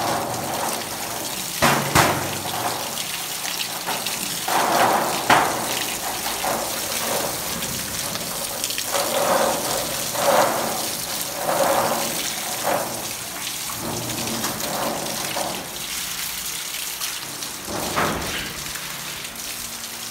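A garden hose spraying water onto civets in a wire-mesh cage, a steady hiss and spatter that swells at times as the jet hits fur, wire and floor. A few sharp knocks come about two seconds in and again near the end.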